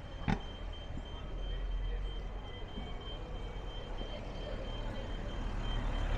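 Street traffic: a motor vehicle's engine rumbling low and growing louder toward the end, with a single sharp knock just after the start and a thin steady high tone over it.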